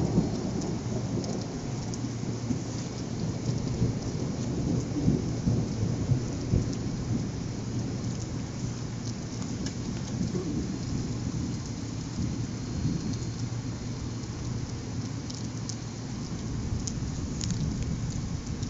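Thunder rumbling over steady heavy rain. The rumble is strongest in the first several seconds and then fades, leaving the rain.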